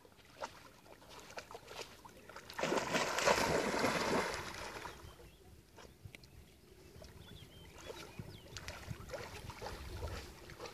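Water sloshing and splashing as a golden retriever wades and then swims in a lake, with a louder two-second rush of noise about three seconds in.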